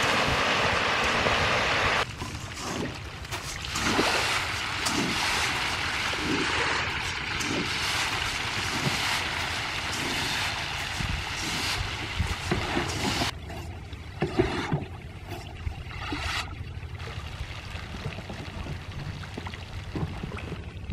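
Pellet feed showering onto a pond's surface and a dense shoal of catfish splashing as they feed. The sound changes abruptly about two seconds in and again about two-thirds of the way through, and it is quieter near the end with scattered splashes.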